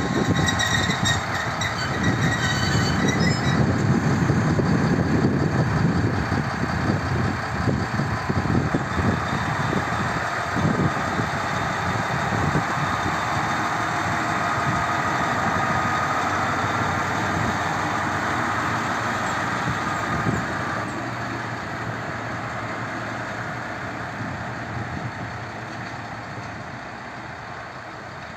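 SM42-1309 diesel shunting locomotive (6Dg modernisation) running light at low speed past the listener, its diesel engine steady. There is a high squeal in the first few seconds. The engine sound fades over the last several seconds as the locomotive moves away.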